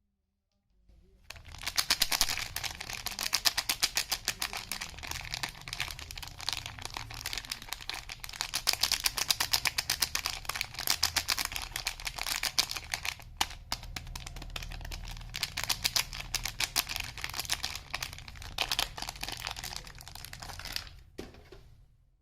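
Soap packaging being handled and opened by hand: a long, dense run of rapid crinkling clicks, with a brief break about halfway through.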